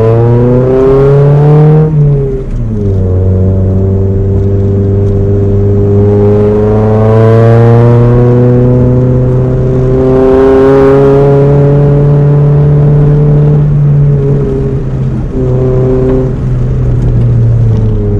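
Honda H23 2.3-litre four-cylinder in a Prelude accelerating, its note climbing steadily through the revs. The pitch drops sharply at gear changes about two seconds in and again near fourteen seconds, then climbs again.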